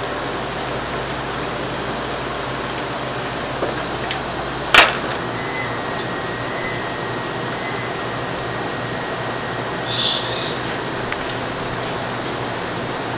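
Steady rushing background noise with one loud metal clank about five seconds in that leaves a faint ring, and a couple of lighter metal clinks near the end, from steel roasting forks and hooks being handled on a metal worktable.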